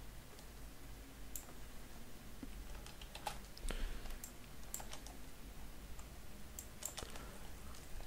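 A few scattered, faint clicks of a computer keyboard and mouse, some in quick little groups, over a low steady hum.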